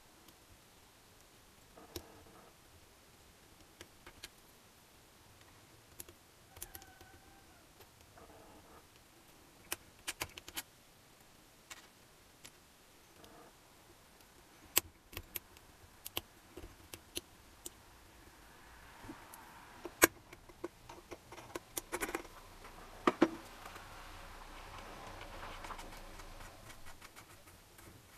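Small metal engine parts clicking, tapping and knocking as they are handled and fitted onto a shaft in an aluminium motorcycle crankcase. The taps are sparse at first and come thicker and louder about two-thirds of the way in.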